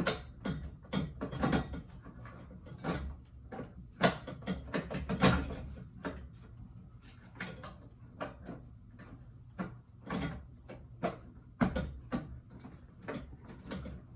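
A ceiling fan being handled and knocked about: irregular knocks, clicks and rattles of its parts, a few louder knocks about four, five and eleven seconds in.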